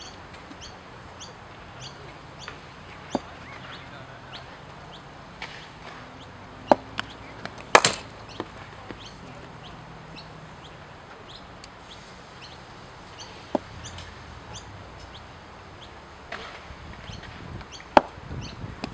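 Birds chirping in a quick, steady series, with about six sharp knocks of a cricket ball in the nets. The loudest knock comes about eight seconds in.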